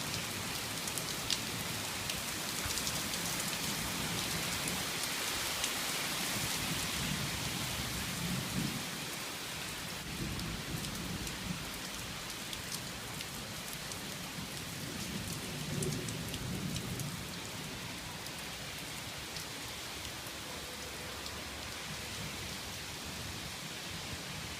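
Steady rain pattering on surfaces at the tail end of a storm, with sharp individual drop hits. Low thunder rumbles swell up a few times, about a third of the way in and again past the middle.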